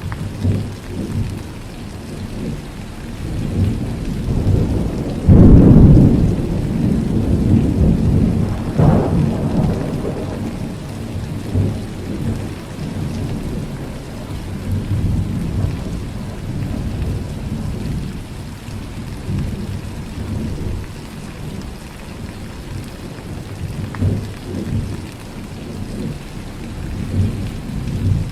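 Steady heavy rain falling, with rolling thunder. The loudest peal breaks suddenly about five seconds in and rumbles on, a second comes a few seconds later, and fainter rumbles follow near the end.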